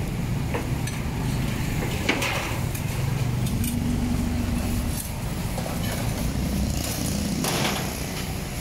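Motorcycle engine idling close by, a steady low rumble in street traffic, with brief clatters about two seconds in and again near the end.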